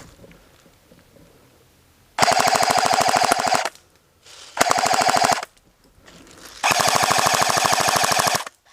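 A&K MK46 Mod 0 airsoft electric machine gun firing three full-auto bursts, the first about two seconds in, a short one in the middle and the longest near the end: rapid even cycling of the gearbox over a steady motor whine.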